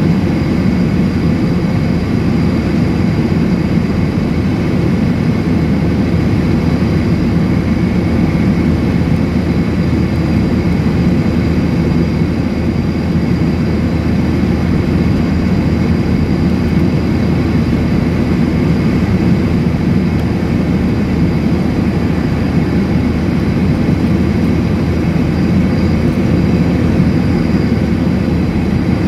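Jet airliner cabin noise in flight: engines and rushing air as a loud, even, low drone that does not change, with a faint steady high tone above it.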